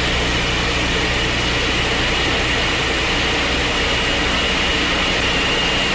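Wind tunnel running: a steady rushing noise with a low hum and a faint high whine.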